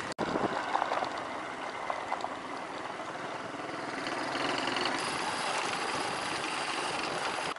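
Small motorcycle riding over a loose gravel dirt track: engine running under a steady rush of tyre and wind noise, which grows a little louder about halfway through.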